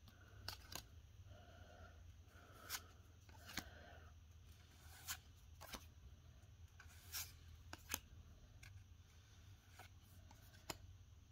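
Pokémon trading cards being flipped through by hand: faint, sharp flicks and snaps of card stock about once a second, over a low steady hum.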